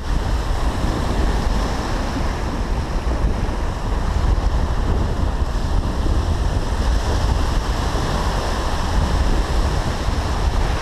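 Small surf waves washing through the shallows, with wind buffeting the microphone in a steady low rumble.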